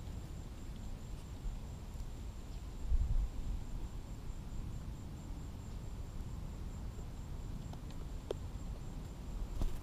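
Low, uneven rumble of wind on the microphone, with a louder thump about three seconds in and a few faint clicks.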